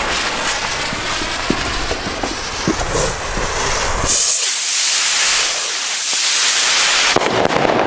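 Two fireworks rockets' fuses hissing and crackling with sparks. About four seconds in, a stronger, higher rushing hiss follows as the rockets launch.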